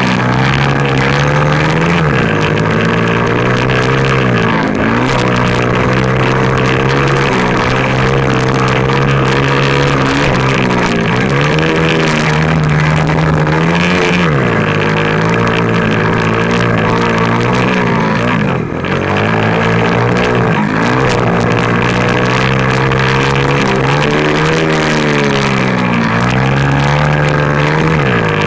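A 50cc pit bike engine heard close up from on board, running at high revs. Its pitch sags and climbs back again every few seconds as the throttle is worked around the track.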